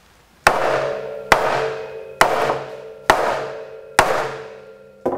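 Mallet blows on a No. 9 eyelet setting die, driving a brass eyelet into a hand-sewn brass ring in a sail corner so that its flare forms. Five sharp, evenly spaced strikes about a second apart, each followed by a ringing tone that dies away, then a lighter tap near the end.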